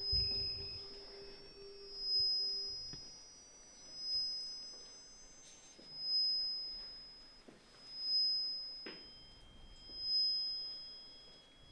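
Electronic sine tones played from a laptop: a high steady tone, with the sound swelling and fading about every two seconds. A lower steady tone stops about three seconds in, and a new tone enters about nine seconds in.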